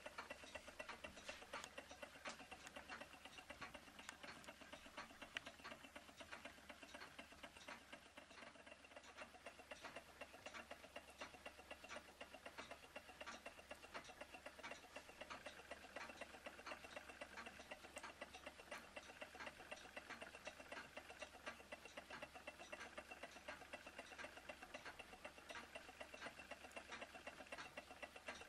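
Model Stirling hot-air engines running, a faint, fast, even mechanical ticking that goes on steadily.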